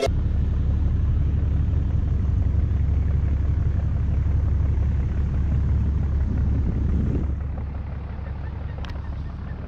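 Motorboat under way: a steady low rumble of the boat's engine mixed with wind buffeting the microphone, easing a little near the end.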